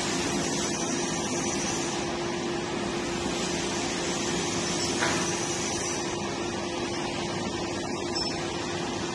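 Medical bed sheet making machine running steadily: continuous mechanical noise with a constant low hum, and one brief click about five seconds in.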